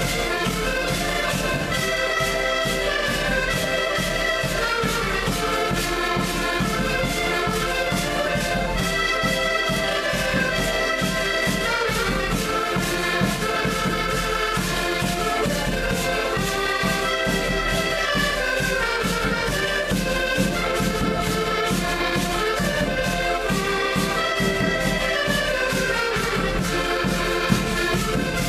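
Several button accordions playing a traditional tune together in sustained chords, with a bass drum beaten in a steady rhythm.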